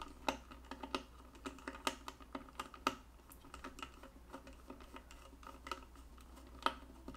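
Small screwdriver tightening a standoff screw into a motherboard's M.2 slot: faint, irregular little clicks and ticks, a few a second, with a slightly louder click near the end.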